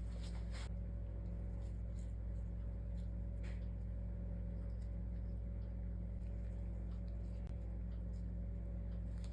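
A steady low hum with a few faint clicks or taps, a couple near the start and one about three and a half seconds in.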